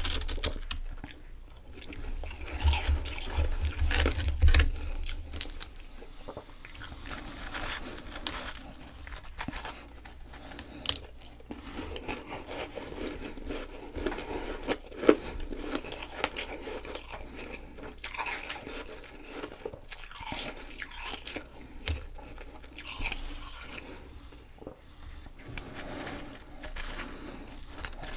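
Close-up chewing and crunching of powdery frost ice, a dense run of irregular crackling crunches with one especially sharp crunch about halfway through.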